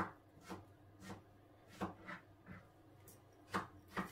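Faint, irregular light taps and clicks, about eight in four seconds, of a spoon against the rim of a mixing bowl while a pinch of dry seasoning is shaken in.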